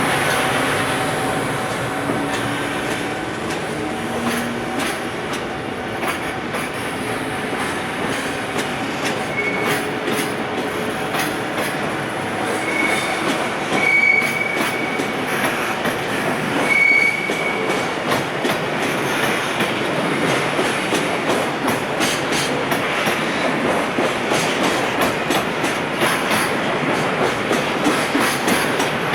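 Container freight train rolling past as it pulls away, its wheels clacking over rail joints. Several brief high wheel squeals come in the middle, and the clacks grow more regular toward the end.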